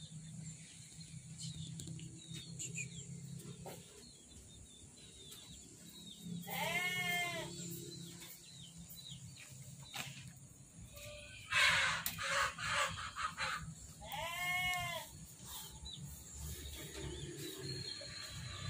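A goat bleating twice, two calls of about a second each, each rising then falling in pitch, about seven seconds apart. Between them comes a short, louder breathy rush of noise.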